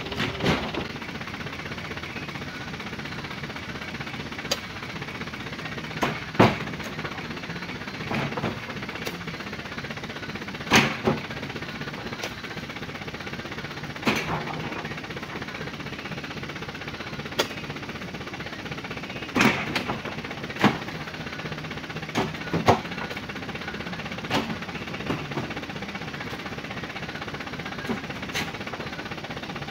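Oil palm fruit bunches thrown up into a small truck's steel-sided bed, each landing with a sharp knock, about fifteen at irregular gaps of one to several seconds, over the steady hum of an idling engine.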